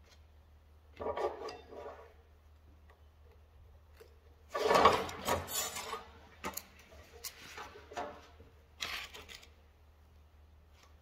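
Tools and a cardboard template being handled on a steel workbench: rubbing and scraping with a few sharp clacks of metal set down on steel, the loudest burst about five seconds in.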